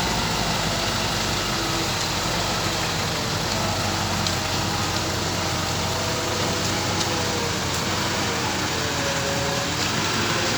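An engine running steadily at an even level.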